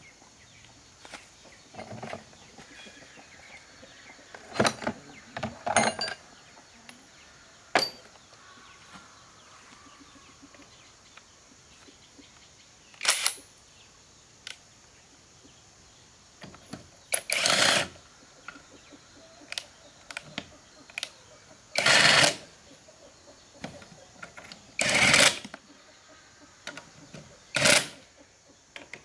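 Hitachi cordless impact wrench running on steel wheel nuts in five short, loud bursts through the second half. A few sharp metal clicks and knocks come earlier.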